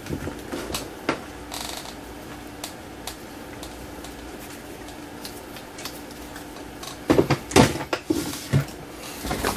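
Test leads being fetched and handled: scattered light clicks and clatter, with a louder run of clattering about seven seconds in.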